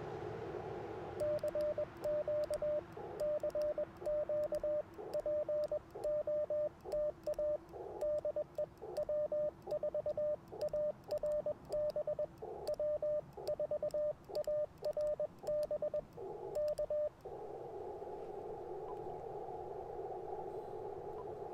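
Morse code sidetone of an Icom IC-705 transceiver keyed with twin paddles: a single steady tone sent in dots and dashes for about sixteen seconds, with faint paddle clicks on the elements. Before and after the keying the radio's receiver hiss plays through a narrow CW filter.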